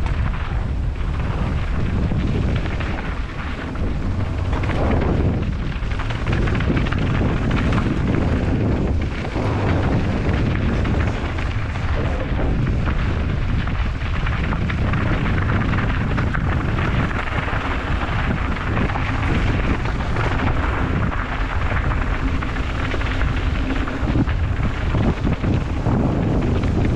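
Wind buffeting the microphone and a loud, steady low rumble from a mountain bike riding fast down a downhill trail.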